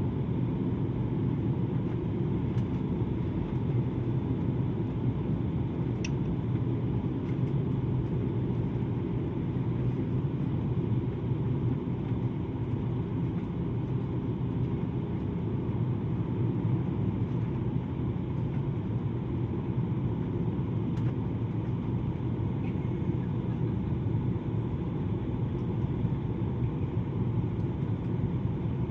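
Steady airliner cabin noise: the engines and rushing air make an even, unbroken drone with a low hum underneath, heard from inside the passenger cabin.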